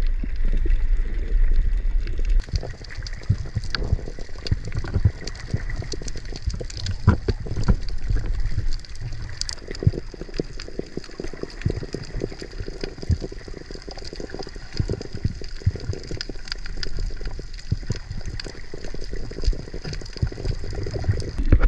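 Underwater water noise recorded through a snorkeller's camera: a muffled, low rumble of moving water with many scattered clicks and crackles.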